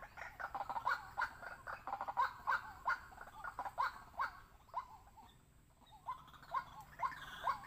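White-breasted waterhen calls: a quick run of short, bending notes repeated several times a second, which pauses about five seconds in and then resumes.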